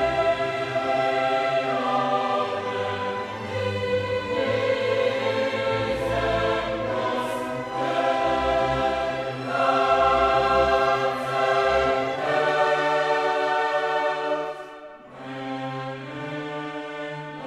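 Choral music with orchestra: voices and instruments holding long notes that change every second or two, growing quieter over the last few seconds.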